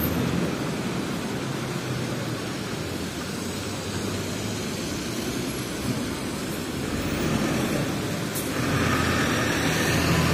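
City street traffic on a wet road: a steady hiss of tyres and engines from passing cars and vans, growing louder about eight seconds in.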